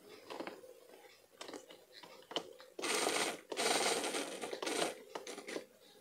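Small DC gear motor of a toy RC monster truck briefly whirring through its plastic gearbox in two short bursts, about half a second and just over a second long, while being tested after its wires were re-soldered. Its battery is running low. Light plastic clicks from handling the truck and remote come before the bursts.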